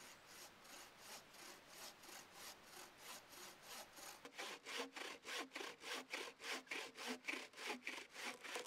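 Handmade wooden buck saw cutting through a log with steady back-and-forth rasping strokes, growing louder and sharper from about halfway through.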